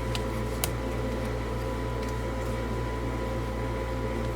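Steady background hum, like a fan or air-conditioning unit running, with two faint clicks in the first second.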